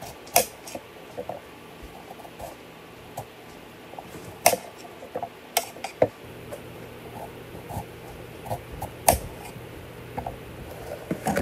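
Scattered clinks and knocks of dishes and containers being handled in a kitchen: single sharp clatters every second or so, a few of them louder. A faint low hum comes in about halfway through.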